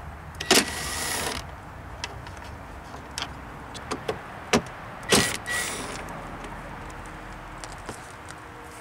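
Ryobi cordless drill running in short bursts to back out tail-light mounting screws: once for about a second just after the start, and briefly again about five seconds in. Scattered sharp clicks and knocks of the tool and screws come in between.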